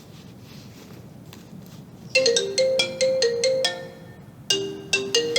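Phone ringtone: a short melody of quick notes starts about two seconds in, breaks off briefly, then starts again near the end.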